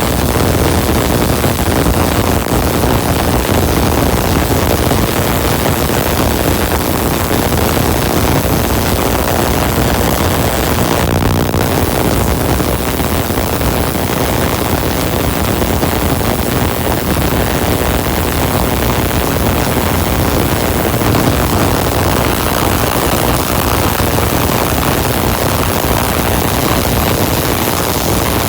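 Spark-gap Tesla coil running with its air-blown spark gap firing continuously: a loud, steady buzzing rush with a low hum under it.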